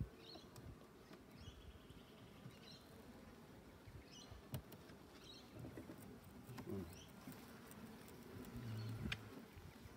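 Faint light wooden clicks and knocks as beehive frames are pried loose and lifted with a metal hive tool, with small birds chirping now and then in the background.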